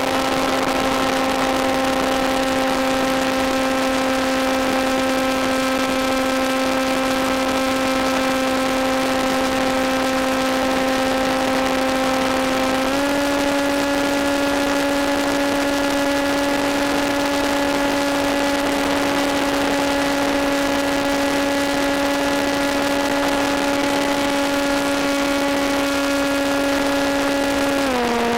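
Electric motor and propeller of an EPP foam FPV plane in flight, a steady whine that tracks motor speed. About 13 seconds in, its pitch steps up a little as the throttle is opened.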